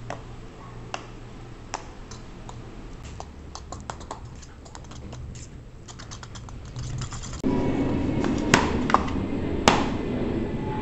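Metal spoon stirring a thick marinade in a ceramic bowl, clinking against the sides in light, irregular ticks. About seven and a half seconds in, the steady noise of an airplane flying overhead comes in, louder than the stirring, with a few sharp knocks over it.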